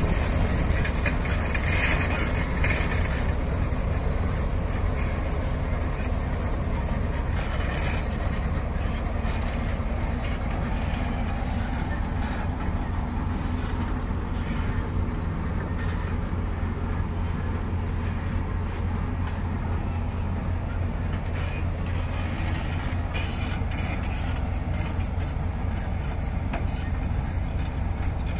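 Heavy diesel machinery engine running steadily, a deep low drone that holds even throughout, with a few faint knocks over it.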